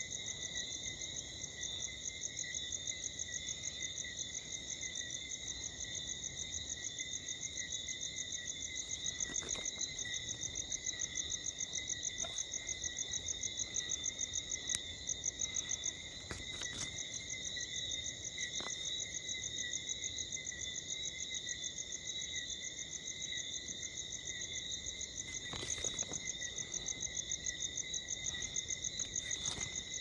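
Nighttime chorus of calling animals: a dense, steady high trilling in several layered pitches, with a few faint knocks.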